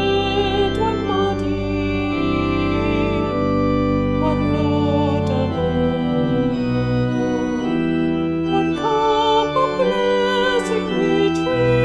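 Organ playing a slow closing voluntary after the service: sustained chords over held bass notes, changing every second or so, with a wavering melody line on top.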